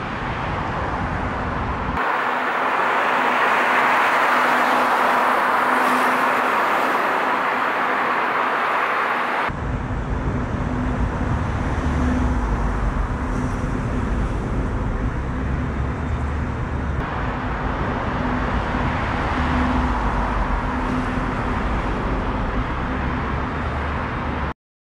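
Roadside traffic noise and wind hiss, with a faint steady hum, played as several back-to-back recordings that switch abruptly in tone, each from a different camera's microphone. It cuts off suddenly near the end.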